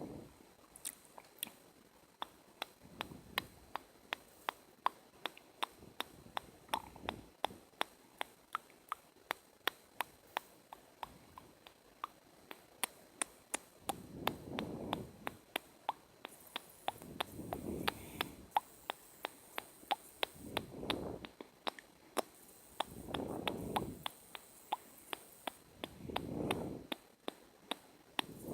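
Close-miked ASMR mouth sounds: a steady run of sharp, wet tongue and lip clicks, about three or four a second, with a softer, longer swell every few seconds.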